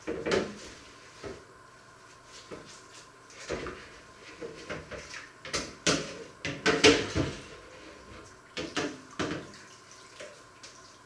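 Washing up by hand at a kitchen sink: a baking tray scrubbed with a sponge and knocked against the sink and other dishes, with water splashing. Irregular clatters and scrapes, the loudest about six to seven seconds in.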